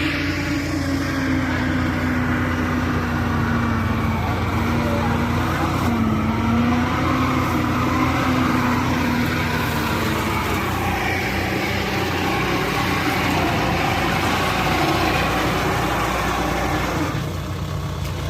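Kubota DC-93 rice combine harvester's diesel engine running steadily under load, with a low drone whose pitch wavers and dips briefly about six seconds in.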